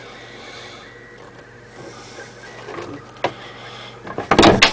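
A hand brushing and pushing against a wooden cabinet door gives a brief loud rubbing scrape near the end, after a light knock. A faint steady hum runs underneath.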